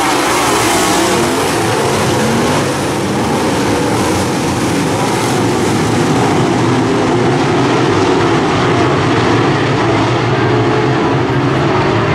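A pack of dirt-track modified race cars' V8 engines running hard around the track. Several engine notes overlap, rising and falling in pitch as the cars accelerate and pass.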